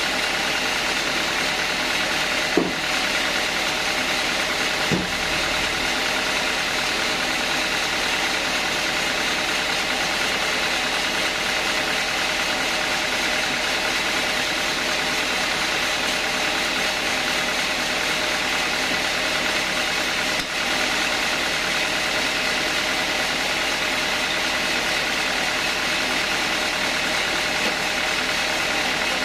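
Sawmill machinery running steadily, an engine-driven saw going at a constant pitch with no change in load. Two short knocks sound a few seconds in, about two and a half seconds apart.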